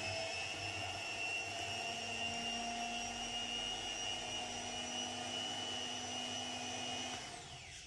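Panasonic electric stand mixer running steadily, its beaters whisking eggs in the bowl, then winding down and stopping near the end, its pitch falling.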